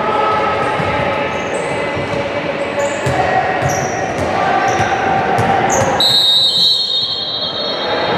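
Basketball being dribbled on a hardwood gym floor, with sneakers squeaking and voices in a large hall. About six seconds in, a referee's whistle blows for nearly two seconds, the sign of a stoppage in play.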